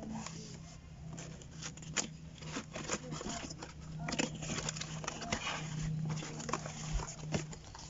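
Cardboard shipping box being handled and its flaps pulled open: scraping and rustling with many sharp cardboard crackles and taps, over a low steady hum.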